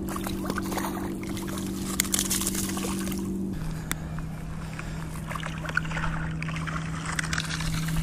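A motorboat engine droning steadily, stepping down to a lower steady pitch about three and a half seconds in. Faint crunches of footsteps on gravel.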